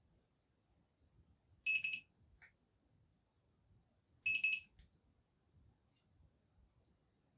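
Two short, high electronic beeps about two and a half seconds apart, typical of a handheld infrared thermometer taking readings.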